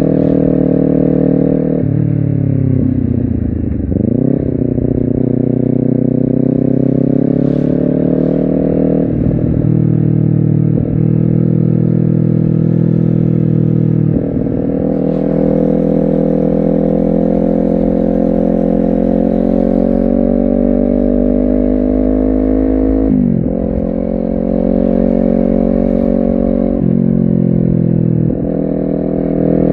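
Honda CBR250RR's parallel-twin engine under way. The revs climb steadily, then break and drop at each gear change, several times over, with a quick dip and climb about three-quarters of the way through.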